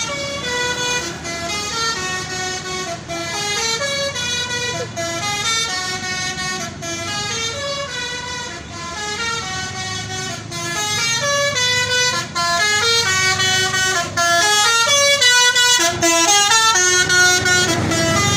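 Indonesian bus 'telolet' horn, a set of air-horn trumpets playing a tune of short notes that step up and down. It sounds throughout and grows louder from about halfway through.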